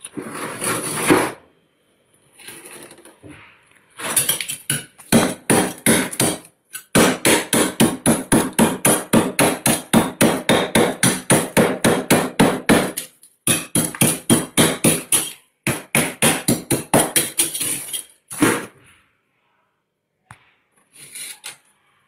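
A metal spoon chipping and scraping at thick packed frost inside a freezer, in quick repeated strokes of about three or four a second. The strokes come in several runs with short pauses between them.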